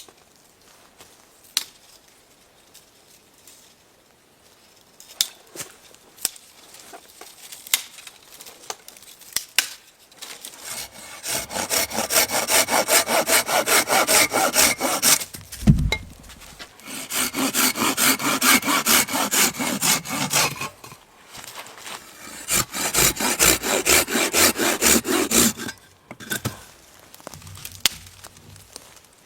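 A hand saw cutting wood in three spells of quick, even back-and-forth strokes, after a stretch of scattered light knocks and clicks. A single dull thud sounds between the first and second spells.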